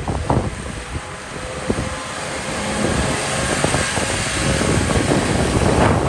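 Wind buffeting the microphone in irregular low gusts over a steady hiss that swells louder from about two seconds in.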